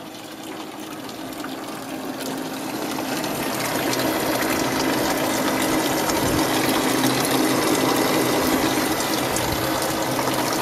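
A 12-volt car radiator fan running steadily with a low hum inside an evaporative swamp cooler, along with water running from its 12-volt marine sump pump. The sound grows louder over the first four seconds, then holds steady.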